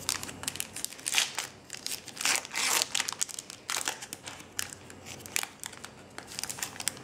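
Foil wrapper of a Pokémon Fates Collide booster pack being torn open and crinkled by hand: irregular crackling and rustling, loudest from about two to three seconds in.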